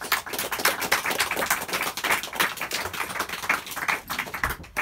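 A small audience clapping, the separate claps quick and close together, dying out just before the end.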